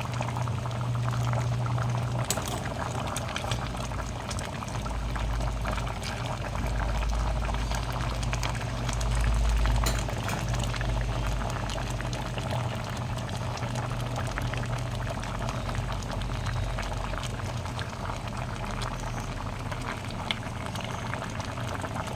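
Kare-kare stew bubbling in a pot, a dense run of small pops and crackles over a steady low hum.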